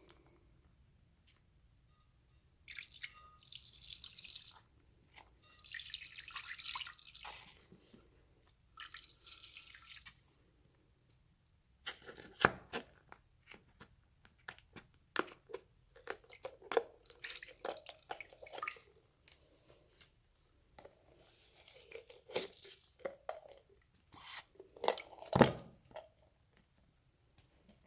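Liquid pouring or squirting in three short hissing bursts, followed by a long run of wet clicks, pops and squelches as slime is squeezed and mixed by hand.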